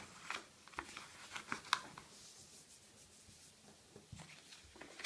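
A sheet of A4 office paper being folded in half and creased by hand: crisp crackles and rustles as the paper bends and fingers press along the fold, thickest in the first two seconds and picking up again near the end.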